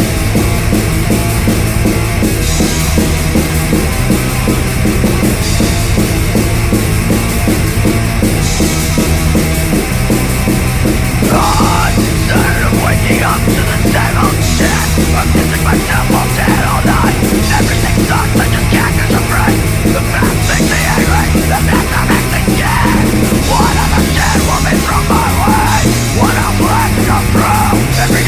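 Loud, aggressive heavy punk-metal band music with distorted guitar, bass and drums driving a repeating riff. A higher, shifting line joins about twelve seconds in.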